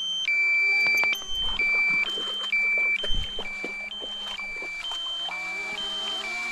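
A drone's low-battery warning alarm: a continuous electronic two-tone beep, swapping between a higher and a lower pitch about every half second. It signals that the drone's battery is nearly flat and the aircraft must land.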